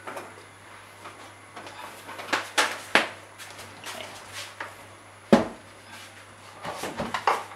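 Knocks and clunks of a wooden bookshelf speaker cabinet being handled and set down on a wooden desk, with the loudest thump just after five seconds in and a flurry of smaller knocks near the end. A faint low steady hum runs beneath.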